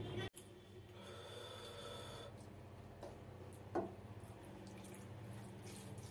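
Soft wet sounds of fingers mixing rice with mustard hilsa curry on a plate and of chewing, over a steady low hum. There is one short sharp click near four seconds in.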